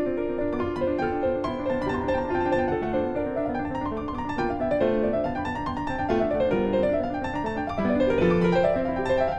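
Instrumental background music built from many quick, short notes running up and down in flowing figures.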